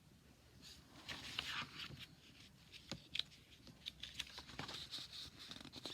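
Faint rustling and small clicks of paper, as of a picture book's pages being handled and turned, starting about a second in.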